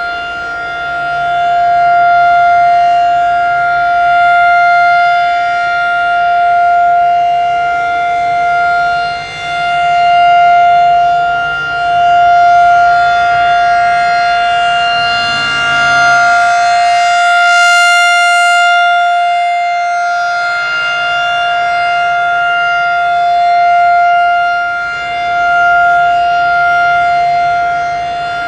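Federal Signal 2001-SRN rotating outdoor warning siren sounding its steady 700 Hz alert tone. The pitch holds steady, and the tone turns brighter and sharper about halfway through as the slowly rotating horn swings past.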